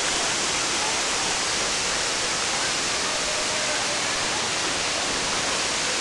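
Waterfall plunging into its pool: a steady, even rushing of falling water.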